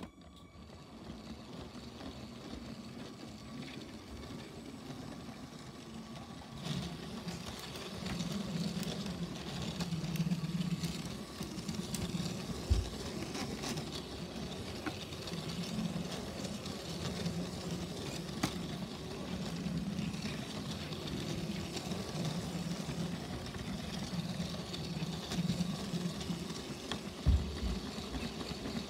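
Motorized Lego train running steadily along plastic track, its motor and wheels making a continuous running noise that grows louder about seven seconds in. Two short low thumps stand out, a little under halfway and near the end.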